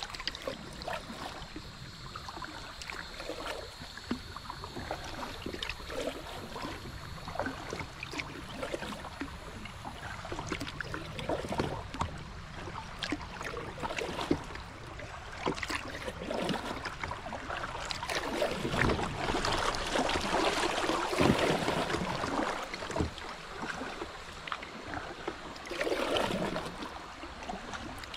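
Water splashing and lapping around a kayak moving along a river, with louder splashing in the second half.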